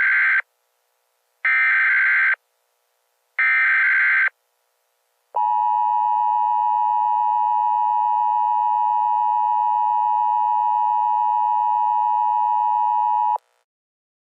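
Emergency Alert System signal: three short bursts of the SAME digital header, each about a second long with a second's gap between, then the two-tone EAS attention signal held steady for about eight seconds before it cuts off sharply.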